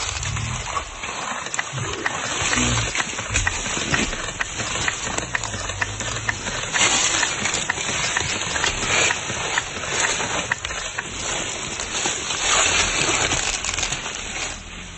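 Silverback gorilla making deep, low-pitched calls that come and go over a steady hiss, with scattered sharp clicks.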